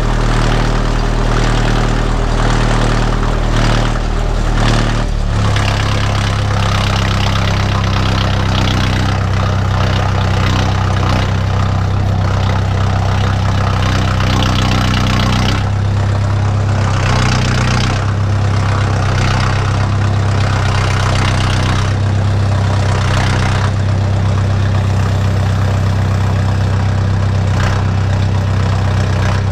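A 45 hp utility tractor's diesel engine running steadily as the tractor is driven, its engine note changing about five seconds in.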